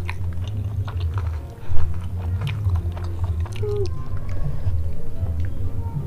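Close-miked chewing with many small wet mouth clicks and smacks, over a steady low hum.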